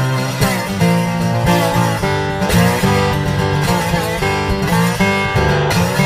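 Background music: an instrumental track led by strummed acoustic guitar.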